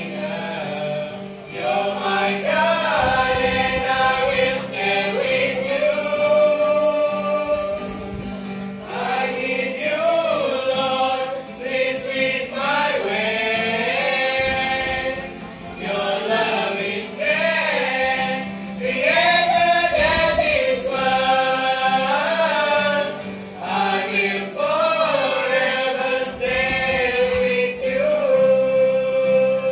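A small youth vocal group of mixed male and female voices singing a gospel worship song in phrases with short breaths between them, accompanied by an acoustic guitar. A steady low hum runs underneath.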